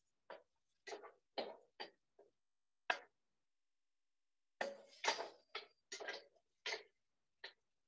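Faint, scattered clicks and knocks of kitchen utensils and dishes being handled, sparse at first and then coming in a quicker cluster about five seconds in.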